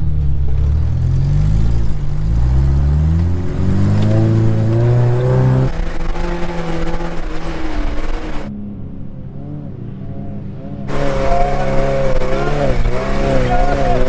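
Suzuki Samurai's small four-cylinder engine revving under load as it climbs a soft sand hill. The pitch climbs in repeated rises through the first half, then drops sharply about six seconds in. The sound goes muffled for a couple of seconds near the two-thirds mark, then the engine comes back, its pitch wavering as it bounces up the slope.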